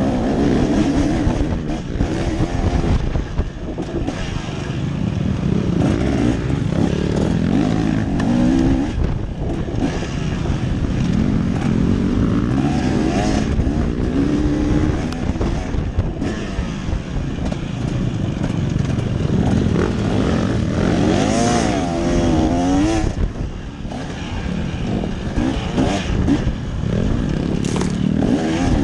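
A motor vehicle's engine running and revving up and down again and again, its pitch rising and falling, over a steady rushing noise.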